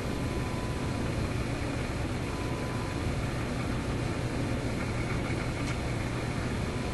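RCA A25 vacuum-tube radio's speaker giving a steady static hiss with a low hum. A faint steady tone near 1 kHz sits in it: the signal generator's modulated test signal tuned in during alignment.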